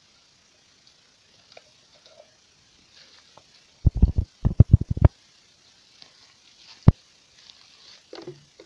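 Handling noise from a handheld camera being moved around: a quick run of about six loud low thumps about four seconds in, one more thump about seven seconds in, and faint crackly rustling between.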